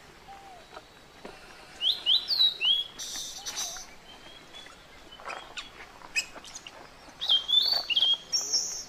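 Short, high chirping calls in two quick clusters, one about two seconds in and another near the end, with faint rustling and clicks between them.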